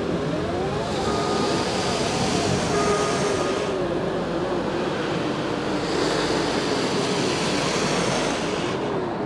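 Minimoog synthesizer tones sliding up and down in pitch in a repeating zigzag over a dense wash of noise. Twice a high hiss of car-wash spray jets comes in for about three seconds.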